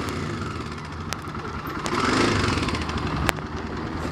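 A vehicle engine idling steadily, with a few sharp clicks and a louder rustling swell about two seconds in.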